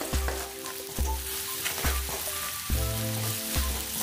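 Sliced garlic and shallots with ginger and ground turmeric and coriander sizzling in hot oil in a wok, stirred and scraped with a spatula, with low background music underneath.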